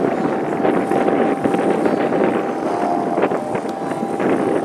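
A 5 hp Suzuki outboard motor running steadily under way, heard as a thin steady whine under a noisy rush of wind on the microphone.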